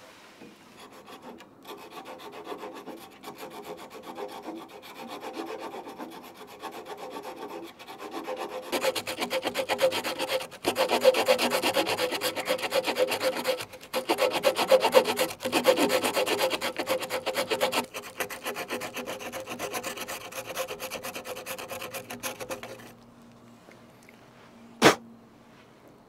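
Victorinox Huntsman pocket knife's small wood saw cutting a groove into a thin branch with quick back-and-forth rasping strokes, softer at first and louder from about nine seconds in, with a couple of brief pauses. The sawing stops shortly before a single sharp knock near the end.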